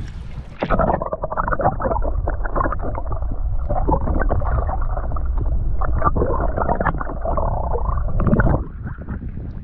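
Water heard through an action camera held underwater: a muffled gurgling and sloshing with a low rumble as a bass is held by the lip and released by hand. It starts about half a second in and drops away near the end.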